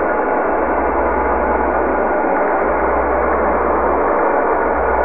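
A steady, unbroken drone of held ringing tones over a low hum, at an even level.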